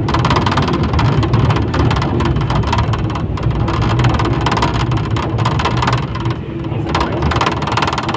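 A 71-911EM "Lvyonok" low-floor tram running along the track, heard from inside the car: a steady rumble of wheels on rails under a low hum, easing slightly near the end.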